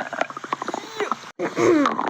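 A cartoon stomach growl: a rapid gurgling rumble, then a louder pitched growl that falls in pitch about one and a half seconds in.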